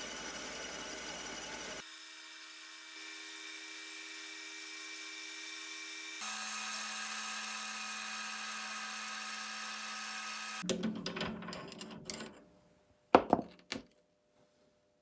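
Small metal lathe running steadily, with its tool turning down a metal rod into a new axle. Its hum holds fixed tones that change twice as the shots change. Near the end it gives way to a few clatters and two sharp knocks as the rod in the chuck is handled.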